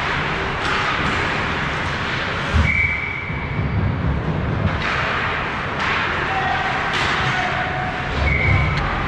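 Ice hockey play around the net: skate blades scraping and stopping on the ice in several sharp hissing bursts, with knocks of sticks and puck. Two heavier thuds come about two and a half seconds in and near the end, each with a brief ringing tone.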